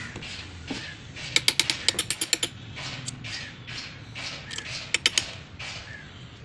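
Hand ratchet wrench clicking on an engine: a quick run of about nine sharp ticks a little over a second in, three more near the five-second mark, and softer short scrapes of metal in between.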